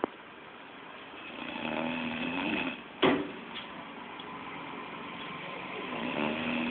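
A person snoring: one long snore from about a second and a half in, another starting near the end, with a sharp click just after the first, which is the loudest moment.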